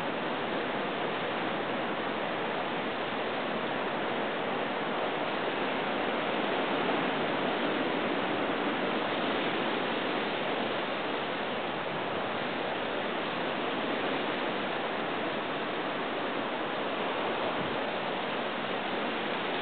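Steady rushing wash of ocean surf on a rocky shore, swelling slightly about a third of the way in.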